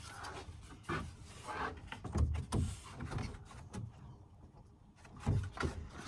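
Irregular knocks, thuds and scrapes of thin wooden ceiling boards being handled and worked into place.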